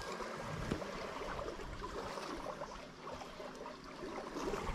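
Faint rustling and handling noise from a camera hidden against clothing, over a quiet outdoor background hiss.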